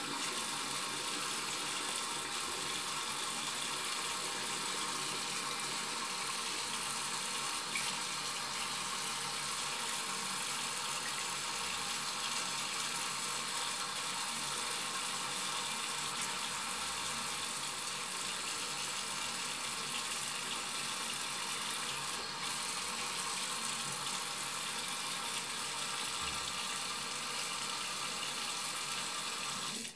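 Tap water running steadily into a sink.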